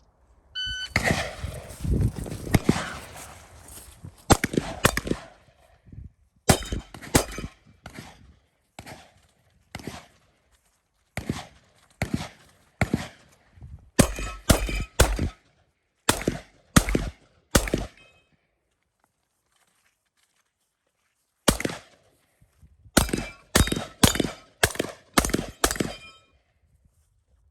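Shotgun fired rapidly through a practical shooting stage: groups of quick shots, some followed by the ring of steel targets being hit. The firing stops for about three seconds in the second half, then resumes.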